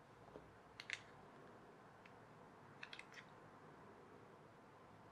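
Faint clicks and taps of small plastic toy parts being handled and fitted during reassembly of a toy gearbox. A couple of clicks come about a second in and a short cluster about three seconds in, against near silence.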